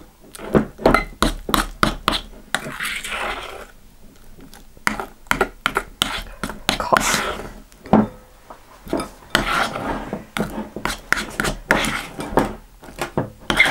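A spoon stirring thick, sticky glue slime in a glass bowl: irregular clinks and scrapes of the spoon against the glass, several a second. The slime has thickened enough that stirring takes effort.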